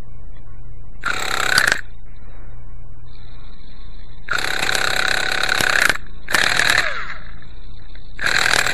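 Small glow (nitro) engine of a Quickie 18 RC helicopter being spun by its starter in four short bursts of cranking. It tries to fire but does not catch: a hard-starting engine.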